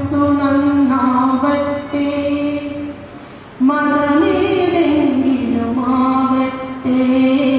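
A woman singing a prayer song, her voice held in long, slowly bending notes, with a short pause for breath about three seconds in.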